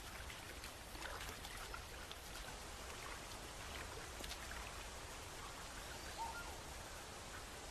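Steady hiss of a waterfall and running water, with a few faint chirps.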